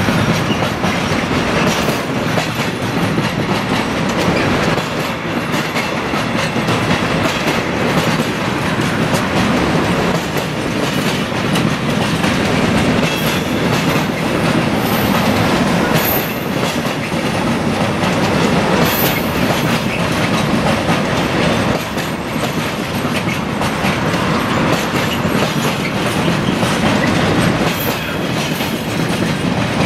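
Freight train wagons rolling past, the wheels clacking steadily over the rail joints, with a few brief high wheel squeals about halfway through.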